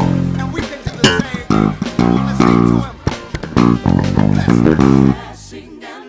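ESP LTD B-155DX five-string electric bass playing a gospel groove of separate, clearly articulated notes along with the band's recording; the line thins out about five seconds in.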